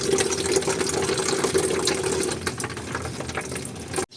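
Watery, coolant-contaminated oil pouring and splashing out of a Ford Everest 2.2 diesel's crankcase, the sign that coolant has mixed into the engine oil after overheating. The flow weakens after about two and a half seconds and cuts off suddenly just before the end.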